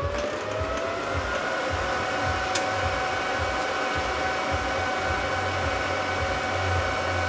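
An electric fan blower spinning up, its whine rising in pitch for about the first second, then running steadily with a rushing hiss.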